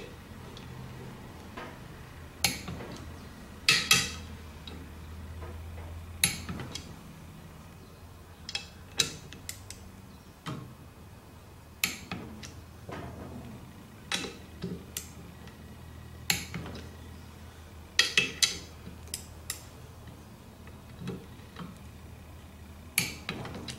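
Torque wrench tightening the clutch pressure-plate bolts on a Honda Civic flywheel to 19 foot-pounds: irregular sharp metallic clicks and clinks, several in quick pairs.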